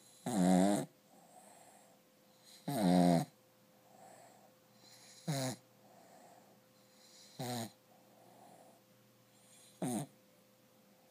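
A sleeping dog snoring: five snores about every two and a half seconds, each falling in pitch, the first two longer and louder than the last three, with fainter breathing sounds between.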